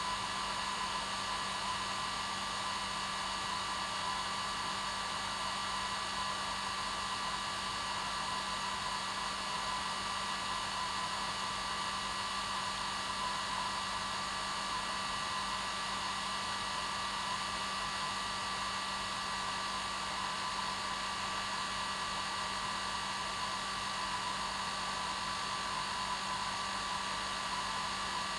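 Hair dryer running steadily: a constant rush of air with an unchanging motor hum and a higher whine.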